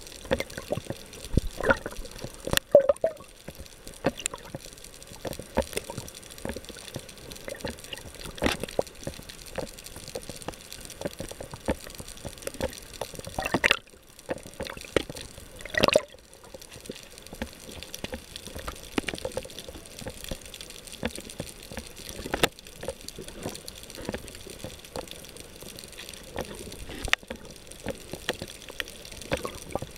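Underwater water noise picked up by a submerged camera: water moving and bubbling, with irregular sharp clicks and pops and a couple of louder swells about halfway through.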